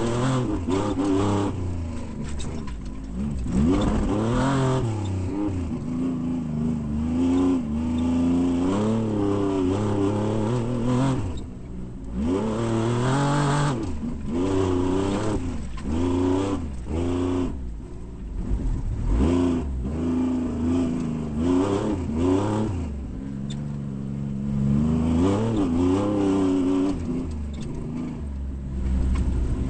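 Off-road race vehicle's engine revving hard and easing off over and over, its pitch climbing and dropping every second or two, over rough, rattling running noise.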